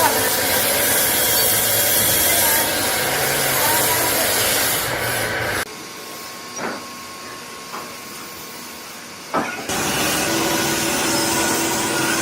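Metalworking machinery noise: a loud, even hiss, which cuts off suddenly to a quieter stretch with a few sharp knocks before the loud machine noise returns, now with a steady hum.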